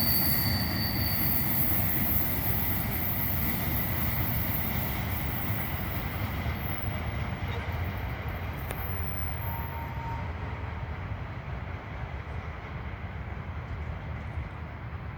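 Train rolling along the track with steady wheel and rail rumble, a thin high wheel squeal in the first second or two, fading gradually as it moves away.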